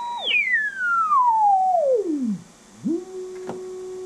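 Drake 2-B receiver's crystal calibrator marker heard as a heterodyne whistle through the speaker, gliding smoothly down in pitch as the dial is tuned across it to near zero beat, then coming back up to a steady low tone.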